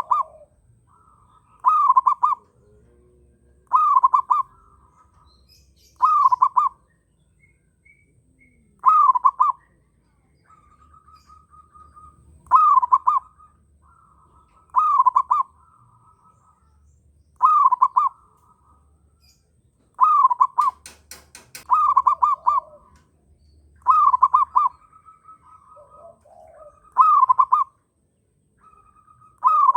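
Zebra dove (perkutut) cooing in strong breeding condition: a short burst of rolling coos repeated about every two to three seconds. Other birds call faintly between the coos.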